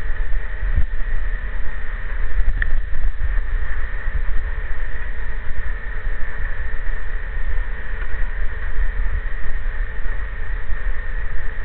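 Steady machinery hum with a constant high tone, under a loud low rumble of wind on the microphone.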